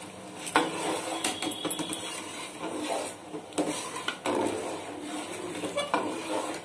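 Metal spoon stirring sugar syrup in an aluminium pot, scraping and clinking against the pot at irregular moments.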